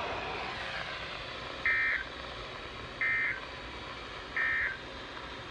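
Three short bursts of screechy digital EAS (SAME) data tones from a NOAA Weather Radio broadcast, each about a third of a second long and roughly a second and a half apart, over a steady hiss. This is the end-of-message code that closes the Required Weekly Test.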